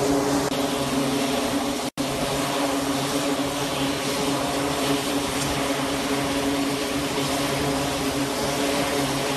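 Steady mechanical hum with a few fixed tones, over a wash of wind noise on the deck of a warship at sea. It cuts out for an instant about two seconds in.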